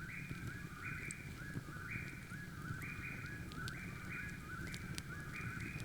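Birds of an unknown kind calling: a steady run of short, even notes at two pitches, about two or three a second.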